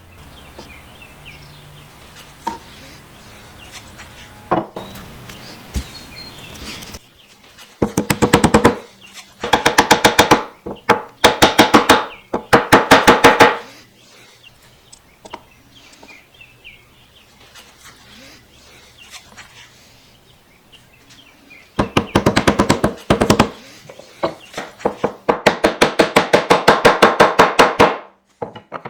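A hand tool scraping wood in six bursts of strokes lasting one to two seconds each, each burst a fast, even chattering rasp. Between the bursts there are light knocks and handling.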